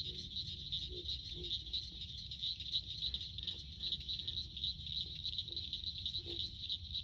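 Evening chorus of insects, a steady high-pitched pulsing trill, with a few short low frog calls through it and a faint low rumble underneath.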